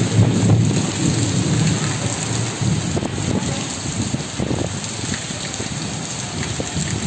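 Heavy rain pouring steadily onto trees and grass, a dense, even hiss of falling water. Under it runs a low rumble, strongest in the first couple of seconds.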